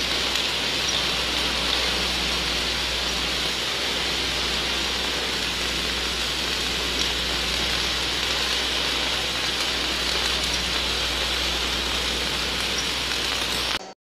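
Steady crackling hiss of a wire-feed welding arc laying a continuous bead from a Weldycar magnetic welding carriage, over a constant low hum. It cuts off abruptly near the end.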